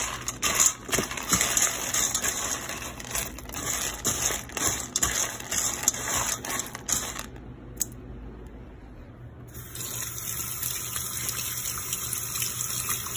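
Dry dog kibble being stirred by hand in a stainless steel bowl, many short clicks and rustles of pellets against the metal. After a short lull, a tap runs steadily over hands in the sink.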